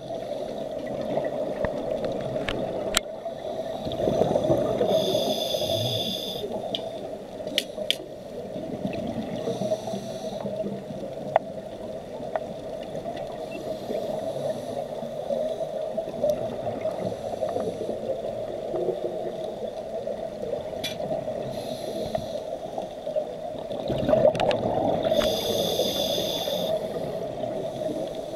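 Heard underwater: a steady muffled drone with scuba regulator breathing, surging twice into a rush of exhaled bubbles, about four seconds in and again near the end, with a few sharp clicks.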